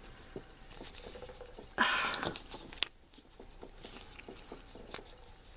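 Plastic toy capsule being twisted and pried open by hand: faint clicks and plastic rubbing on plastic, with a short rustle about two seconds in and a sharp click just after.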